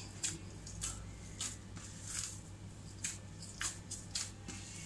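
Soft wheat-flour (atta) dough being kneaded by hand in a stainless steel bowl, pushed and punched with the knuckles in repeated squishing strokes about twice a second. A steady low hum runs underneath.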